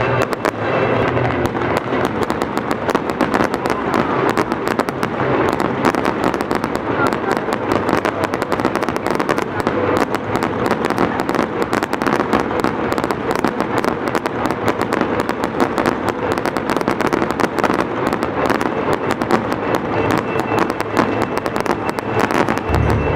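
Aerial fireworks display: a continuous, rapid barrage of bangs and crackling from many bursting shells at once.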